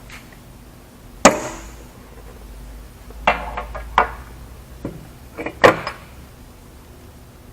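A series of sharp knocks and clunks, about six, as tools or parts are handled and set down, over a steady low hum. The loudest knocks come about a second in and again about two-thirds of the way through.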